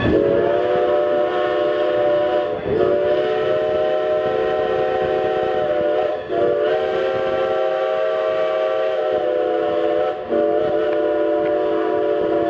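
Steam whistle of the train's locomotive, No. 90, sounding long, steady blasts. It breaks briefly three times, so it sounds as four long blasts.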